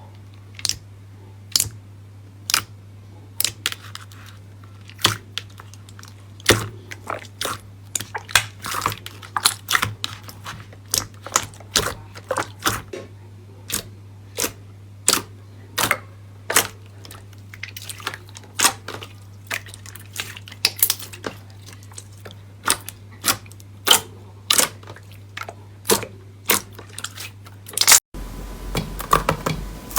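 Slime being pressed and poked by hand, giving sharp, irregular pops and crackles about one or two a second. Near the end it cuts to a denser run of crackling.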